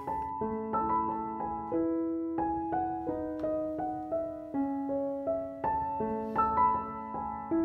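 Background piano music: a gentle run of single notes over held chords at an even, unhurried pace.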